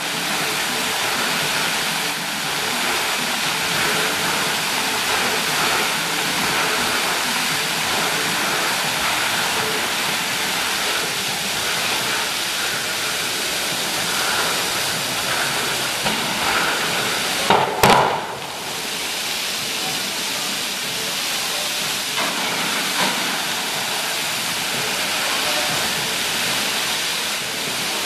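Water jets of a large music-synchronized fountain spraying and splashing back into the basin: a steady rushing hiss, with a brief louder burst about two-thirds of the way through.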